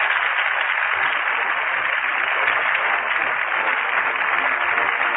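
Studio audience applauding: a steady, even clatter of clapping from a large crowd, heard through the narrow, thin sound of an old radio broadcast recording.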